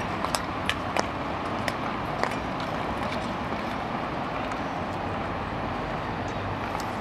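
Speed skates striding on outdoor ice, with sharp clicks about three a second, the snap of clap-skate blades, that die away after about two seconds as the skater moves off, over a steady background rush.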